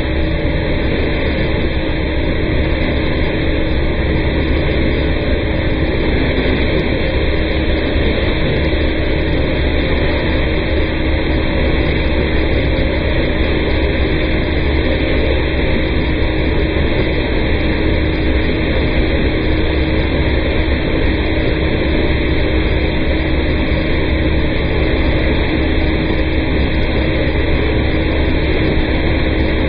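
Vac-Con vacuum truck's suction tube drawing in rainwater: a steady rushing noise over the low hum of the truck's vacuum system running, unchanging throughout.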